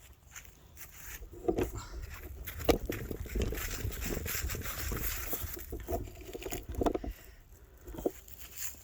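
Irregular footsteps and rustling handling noise, with scattered knocks, over a steady low rumble.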